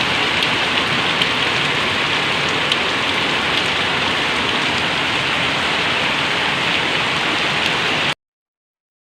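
Heavy rain falling steadily, an even dense hiss, cutting off abruptly to silence about eight seconds in.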